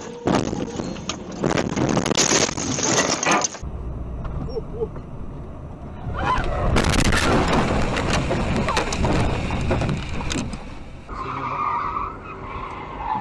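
Dash-cam crash sounds in quick succession: a collision with a truck, with loud scraping and knocking of metal, then, after a cut, steadier road noise, then a car skidding sideways with tyre noise and repeated knocks.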